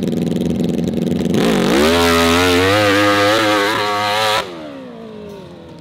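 Dirt bike engine running, then revved hard about a second and a half in and held at high revs with a wavering pitch, cutting off abruptly near the end.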